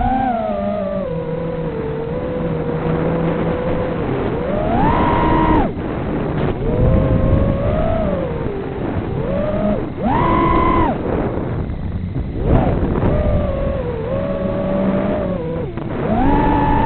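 FPV quadcopter motors whining, the pitch gliding up and down with the throttle and surging high about five, ten and sixteen seconds in. Wind noise runs underneath.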